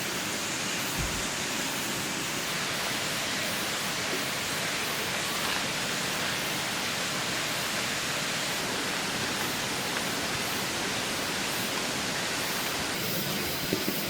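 Steady rush of a mountain valley stream: an even, unbroken hiss of flowing water.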